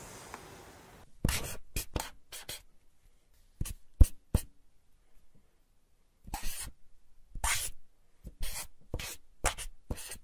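Felt-tip marker drawn across paper in quick, separate strokes, in groups with a pause of about two seconds midway. The sharpest stroke comes about four seconds in.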